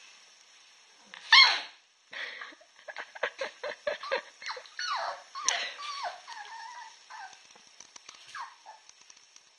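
Two dogs, a black adult and a puppy, playing: one loud bark about a second in, then a long run of short high-pitched yaps and whines, some sliding down in pitch, that fade out near the end.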